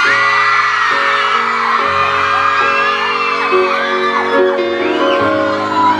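Instrumental intro of a pop song, sustained chords changing about once a second, with a crowd of fans screaming and cheering over it in high, wavering whoops.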